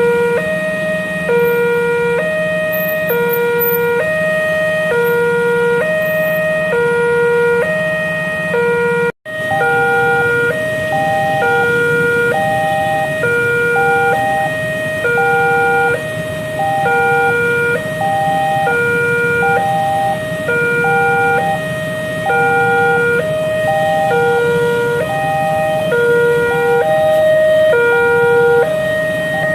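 Railway level-crossing warning siren (the crossing's new siren) sounding a two-tone alarm that alternates between a lower and a higher pitch about every 0.8 seconds and keeps repeating. It breaks off for a moment about nine seconds in.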